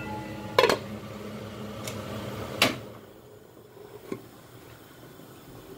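Stainless steel lid being set on a pot of simmering curry: two sharp metal clinks, about half a second in and again near the middle, with a few fainter taps, and the steady hiss of the pot quietens once the lid is on.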